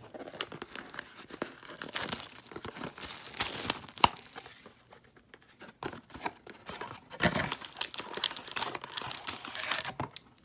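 Trading-card packaging being torn open and crinkled by hand, in irregular crackling spurts, with one sharp snap about four seconds in.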